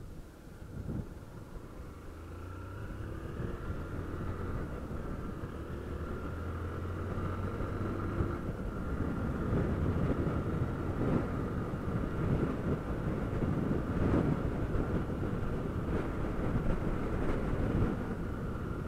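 Single-cylinder Honda CG 160 Fan motorcycle engine running as the bike pulls through a junction and picks up speed down a street, with wind noise over the microphone rising steadily as the speed builds.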